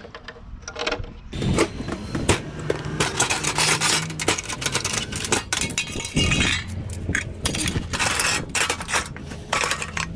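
Small metal parts clattering and scraping in quick, irregular clanks as scrap is handled and pulled apart, over a steady low hum.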